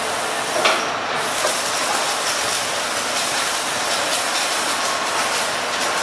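Steady, even rushing noise of a factory workshop, with a few faint knocks while a multi-groove aluminium pulley is lifted onto its shaft.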